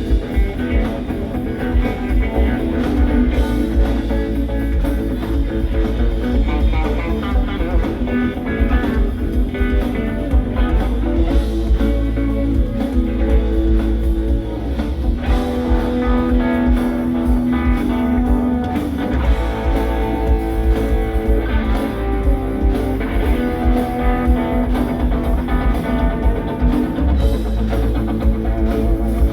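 Rock band playing an instrumental passage live, guitar out front over a drum kit.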